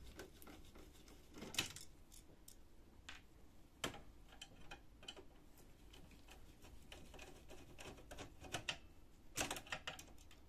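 Hand screwdriver backing out the screws that hold a laser printer's fuser unit: irregular faint clicks and ticks of the bit and screws against the metal frame, with a few sharper clicks, the loudest about one and a half, four and nine and a half seconds in.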